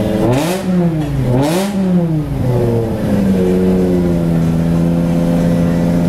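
BMW M6 engine revved twice in quick succession, its pitch climbing and dropping each time, then settling back to a steady idle.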